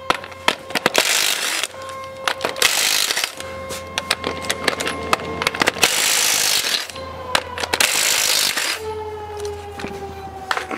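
Cordless impact wrench rattling off rusty lug nuts in several short bursts, with sharp metallic clicks and clinks of loosened nuts between the bursts. Background music plays underneath.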